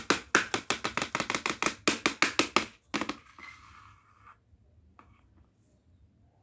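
A quick run of sharp knocks or taps, about six a second, stopping about three seconds in, followed by a single faint click.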